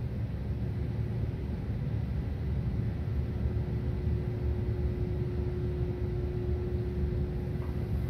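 Antique Westinghouse Mini Sidewinder ceiling fan's motor speeding up on a solid-state speed control, over a steady low rumble from a big heater. About three seconds in, a steady hum comes in: solid-state control noise in the motor.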